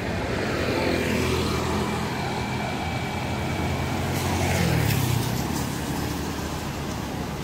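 A motor vehicle's engine running close by, swelling louder and rising in pitch about four to five seconds in as it passes, then easing off, over general street noise.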